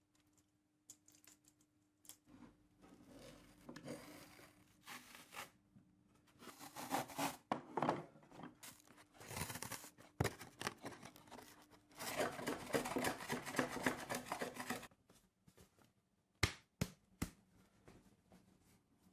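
Hand work on an old wooden tool box: irregular scraping and tearing sounds in bursts, with a few sharp clicks near the end.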